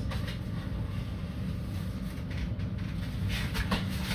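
Steady low hum in the kitchen, with a few light clicks and knocks as eggs are taken from the refrigerator.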